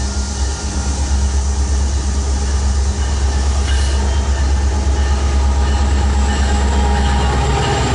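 Union Pacific freight train's diesel locomotives approaching and passing, with a steady low engine drone growing gradually louder.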